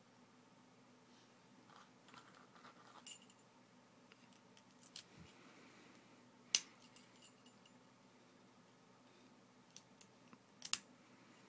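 Faint, scattered metallic clicks and light rattling from a 5-pin padlock being handled and worked with a lock pick, with a sharper click about six and a half seconds in and another near the end.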